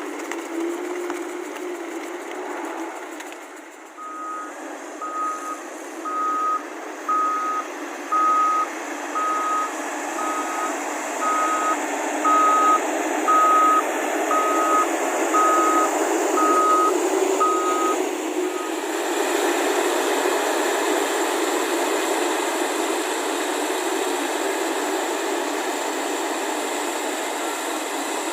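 Reversing alarm of a heavy machine, a single high steady tone beeping about once a second for some fifteen beeps, over the steady running of its engine. The beeping stops about two-thirds of the way through and the engine noise grows louder.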